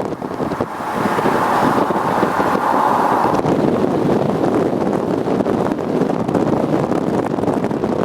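Car driving at speed, heard from inside the cabin: a steady rush of road and wind noise, with wind buffeting the microphone.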